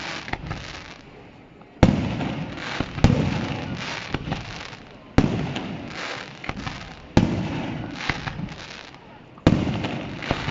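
Fireworks display: aerial shells bursting with five sharp bangs about two seconds apart. Each bang is followed by a rolling echo and smaller crackles.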